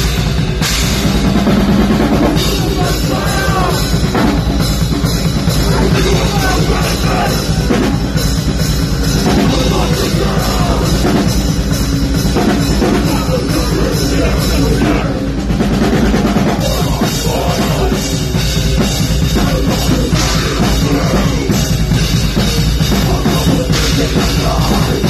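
Live nu-metal band playing loud: distorted electric guitar, bass and a drum kit with heavy bass drum, one dense unbroken wall of sound.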